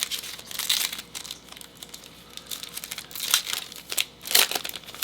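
Wrapper of a Panini Chronicles Draft Picks football card pack being crinkled and torn open by hand: irregular crackling with two louder rips, about three and four seconds in.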